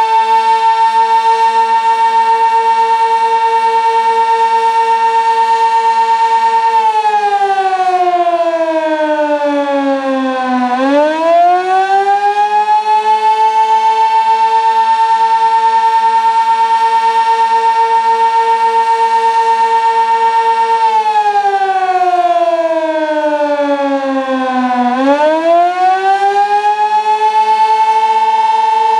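Sentry 16V1T-B outdoor warning siren sounding the attack signal. It holds a loud steady tone for several seconds, then slides down in pitch and climbs back up, and the cycle happens twice.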